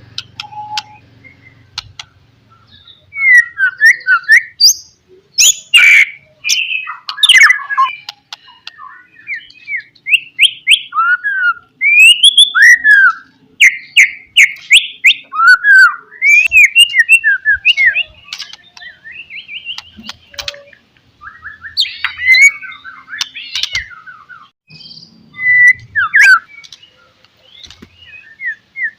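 White-rumped shama (murai batu) singing a loud, varied song of whistled phrases, fast runs of notes and sharp clicking notes, broken by short pauses between phrases.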